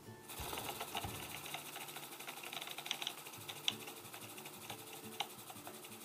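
Model P-51D's propeller and spinner spinning, a fast, even mechanical whirr-rattle that starts a moment in and eases off slightly after the first second or so, with a few sharper ticks.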